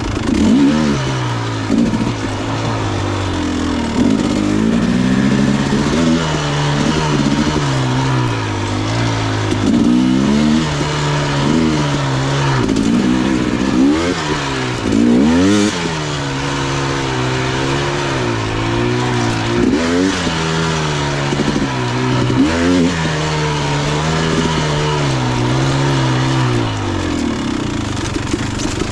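Dirt bike engine running under a rider, revving up and dropping back over and over as the throttle is worked every two seconds or so. A single sharp knock about halfway through.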